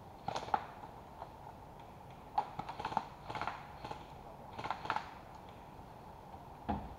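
Footsteps crunching through dry leaf litter, in several short clusters of crackly steps with pauses between.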